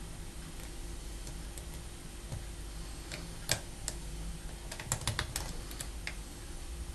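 Small sharp clicks of a homemade hacksaw-blade hook pick and thin tension wrench working the pin stack of a five-pin Basta padlock: a few single clicks from about three seconds in, then a quick run of them around five seconds.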